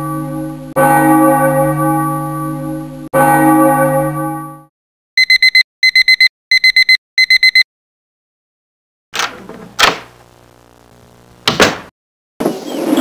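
A school bell struck twice, each stroke ringing on and fading, followed by an alarm clock beeping in four quick bursts. After a pause come a few sharp knocks with a low hum between them.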